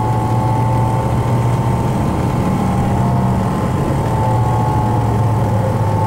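Tour bus running, heard from inside the cabin: a steady engine drone with a thin, constant whine above it.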